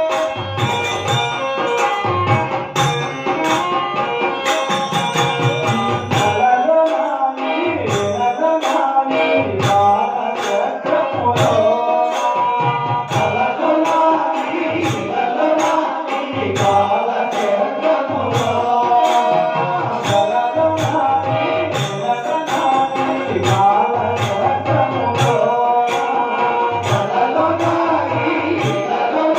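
A Telugu devotional bhajan performed live. A two-headed dholak drum beats a steady rhythm under held harmonium chords, and a group of men sings.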